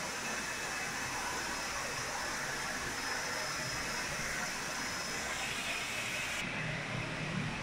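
Steady rushing and splashing of water running through fish hatchery rearing troughs, an even hiss with a low hum of the hall's machinery beneath it.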